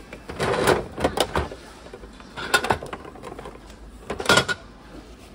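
Capsule-toy vending machine turned by its crank dial, giving a few clunks and clicks in the first second and a half and another about two and a half seconds in. Just after four seconds there is a plastic clatter as the capsule is pulled out through the outlet flap.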